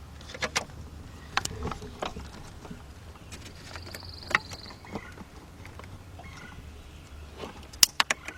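Clicks and clacks of battery tester clamps being attached to a car battery terminal, with a high electronic beep lasting about a second and a half midway as the handheld tester powers up. A cluster of sharp clicks comes near the end.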